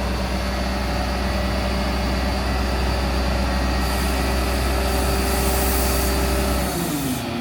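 Heavy engine running steadily with a deep drone and a steady hum above it. Near the end the deep drone drops away and the engine note slides down in pitch.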